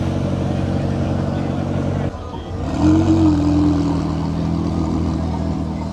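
A car engine idling with a steady hum. About two seconds in the sound breaks off abruptly, and a louder engine note comes in, rising briefly and then holding steady.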